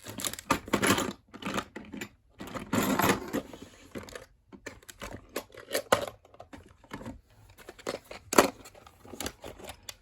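Rummaging through small tools: irregular clicks and clatters of small metal pieces, with two stretches of rustling, one near the start and one around three seconds in.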